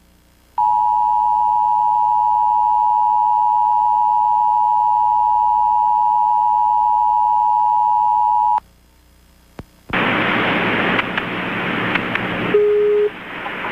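Emergency Alert System two-tone attention signal (853 and 960 Hz together) sounding steadily for about eight seconds. A short silence follows, then a loud hiss with a brief lower beep near the end as the alert audio switches over.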